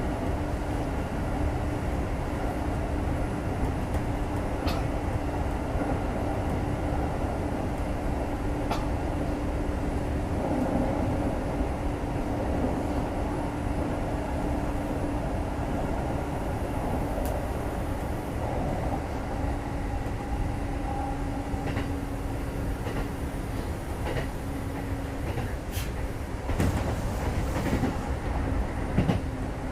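Kintetsu 2430 series electric train running at speed, heard from inside the car: a steady rumble of wheels on rail with a constant hum, and occasional sharp clacks over rail joints, more of them near the end.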